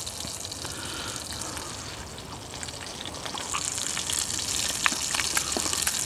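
Minute steak sizzling in oil in a frying pan over a gas burner: a steady hiss with sharp crackles and spits that grow louder about halfway through.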